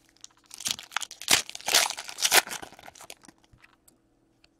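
The wrapper of an O-Pee-Chee Platinum hockey card pack is torn open and crinkled: a burst of crackling about two seconds long that dies away to a few light ticks.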